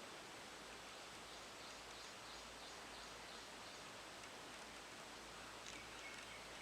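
Near silence: faint steady background hiss, with a short run of faint, evenly repeated high chirps in the first half.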